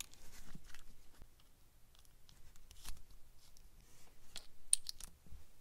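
Faint clicks and scrapes of a small hex driver backing out the tiny screws of a micro RC crawler's transmission cover, and the cover coming off. A few sharper clicks come near the end.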